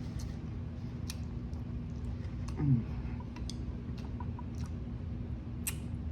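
A person eating a mouthful of noodles: scattered small mouth clicks and smacks of chewing, with a short "mm" about two and a half seconds in. A steady low hum runs underneath.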